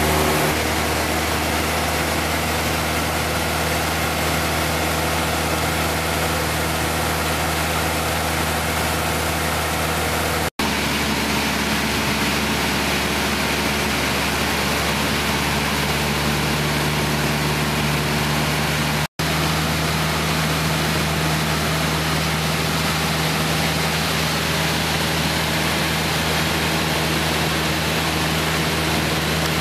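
Light aircraft's piston engine and propeller droning steadily, heard inside the cabin with rushing airflow noise. The sound drops out abruptly twice for an instant.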